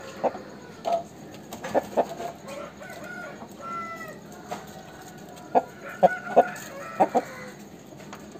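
Aseel rooster clucking: short sharp clucks, singly and in quick pairs, with a few brief higher calls about four seconds in.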